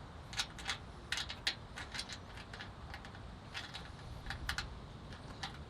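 Hand ratchet clicking in irregular bunches of sharp metallic ticks while tightening a nut onto a light-bar mounting bolt.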